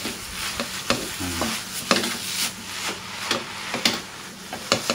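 Rice vermicelli being stir-fried in a wok with a wooden spatula and a metal spatula. Irregular scrapes and clacks of the spatulas against the pan sound over a steady sizzle.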